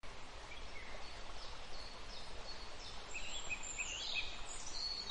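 Faint bird chirps and short whistles over a low steady hiss, growing busier about halfway through.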